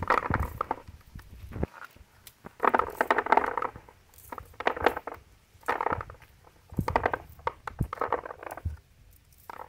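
Small, hard palm fruits being stripped by hand from a bunch and pattering into a bucket. They come in about six quick handfuls of rattling, each under a second, roughly a second apart.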